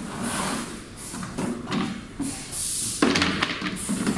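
White plastic parts of an onigiri-forming machine being handled in a plastic crate: rummaging and scraping with knocks, and a louder clatter about three seconds in.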